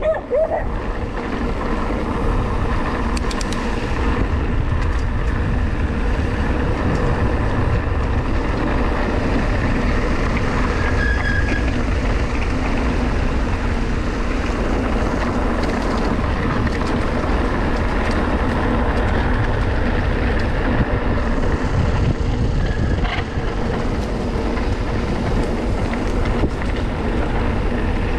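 Mountain bike rolling downhill over cobblestones: a steady rumble and rattle of the tyres and bike shaking over the stones.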